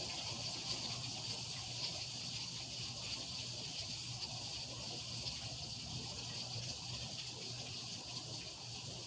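Heavy rain pouring steadily, an even hiss with no break, over a faint low hum.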